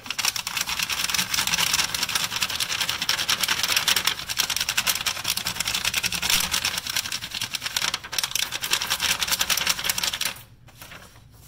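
Rapid back-and-forth scribbling strokes of a drawing tool rubbing over paper laid on a textured coin purse, making a texture rubbing. The strokes are continuous and scratchy and stop abruptly about ten seconds in.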